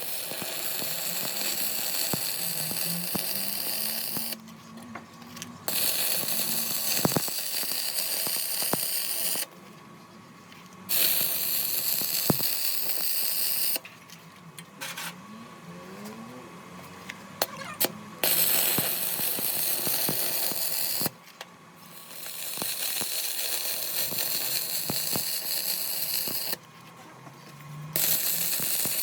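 Metalworking machine noise: a high hissing run of cutting or grinding in stretches of a few seconds that start and stop abruptly, with short quieter gaps and scattered clicks between them.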